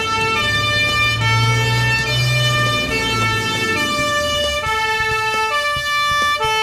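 Cartoon background music: a reedy synth melody in short held notes, over a low drone.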